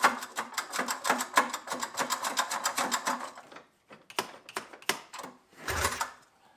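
A 1976 John Deere 440 snowmobile's two-stroke engine being turned over stiffly by its recoil pull starter, without starting. There is a fast, even clicking of about five or six a second that stops about three and a half seconds in, then a few separate clanks and a louder rattle near the end.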